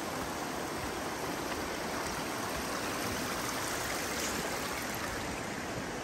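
The Salmon River rushing steadily.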